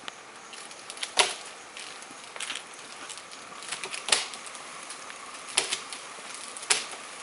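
A palm climber's loop and body knocking against the palm trunk as he works his way up: sharp, irregular knocks about once every second or so, over a faint outdoor background hiss.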